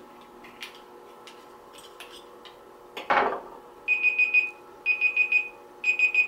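Smartphone timer alarm going off, three groups of about four quick high beeps roughly a second apart, stopped near the end when the phone is tapped. Just before the beeps start there is one short noisy whoosh.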